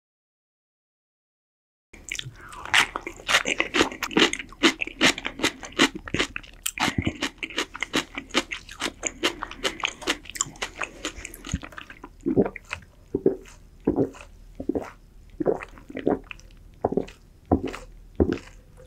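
Silent for about two seconds, then close-miked crunchy chewing and biting: dense crunches for about ten seconds, then slower chewing clicks spaced about half a second apart.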